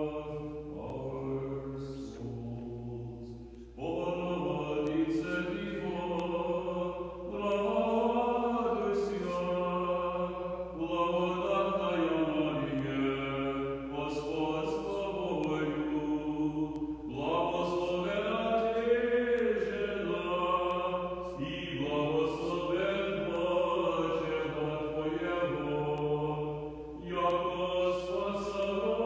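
Unaccompanied Orthodox liturgical chant, sung in long melodic phrases with held notes and short breaks between them.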